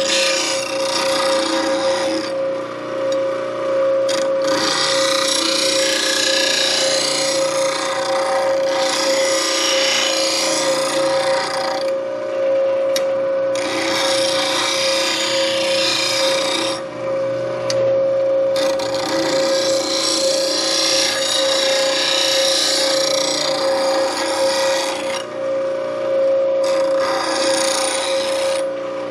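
Bench grinder running with a steady hum while a steel bowl gouge is ground freehand against its wheel. The grinding hiss comes and goes every few seconds as the tip is swept across the wheel in repeated clean-up passes, shaping a fingernail (Ellsworth) grind.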